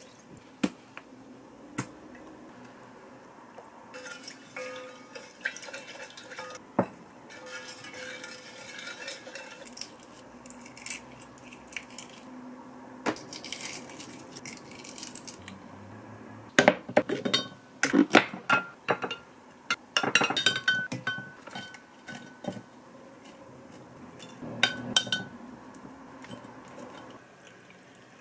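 Kitchen handling sounds of dishes and utensils: scattered light taps and clinks, then a dense run of sharp taps and clinks in the second half as boiled eggs are cracked and peeled over a glass bowl.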